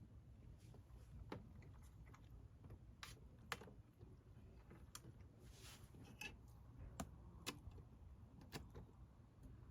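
Near silence with a few faint, irregularly spaced clicks and taps over a low background rumble.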